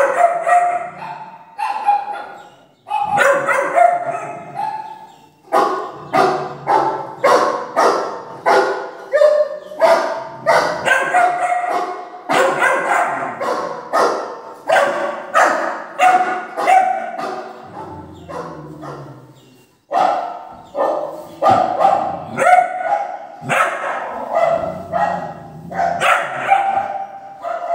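Recorded dog barking played through a speaker: repeated barks, about two a second, with a short lull about eighteen seconds in.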